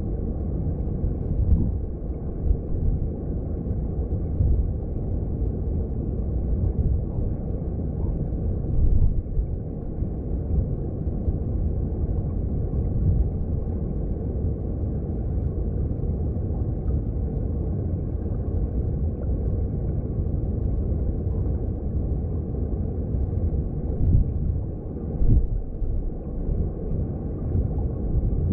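Mountain stream heard underwater: a steady low rumble of flowing water, with a few brief louder swells.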